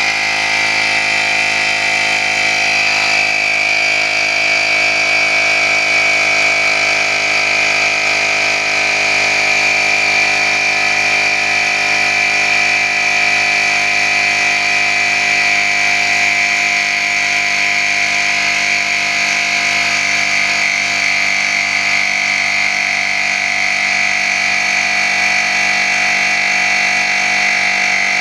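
Small electric air compressor running steadily, set to 1.5 bar and pumping air into a gas boiler's expansion tank to restore its pre-charge pressure.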